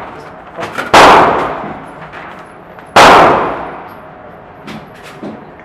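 Two AR-15 rifle shots about two seconds apart, each ringing on in a long echo off the walls of an indoor range. A few light clicks follow near the end.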